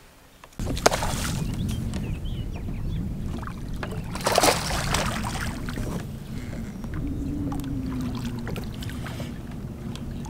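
Wind on the microphone and choppy water slapping the hull of a bass boat, a steady low rumble. About four and a half seconds in comes one short splash as the hooked bass thrashes at the surface.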